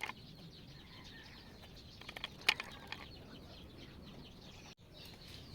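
Faint birds chirping in the background, with a few light clicks and taps about two seconds in.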